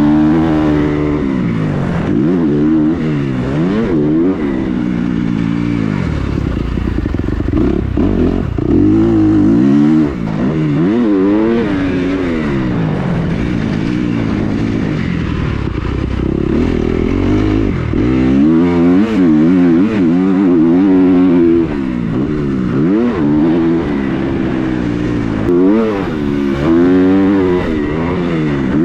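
Dirt bike engine being ridden hard, revving up and falling back over and over, its pitch rising and dropping every second or two.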